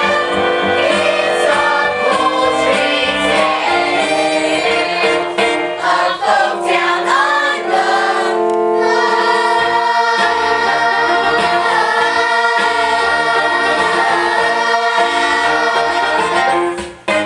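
A young cast sings a musical-theatre chorus number in unison with musical accompaniment. From about halfway through, the singers hold a long final chord, which cuts off shortly before the end.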